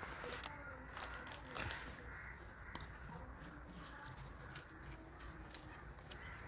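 Faint crinkling and tapping of a fresh banana leaf being pressed down by hand inside a clay pot, with faint bird calls in the background.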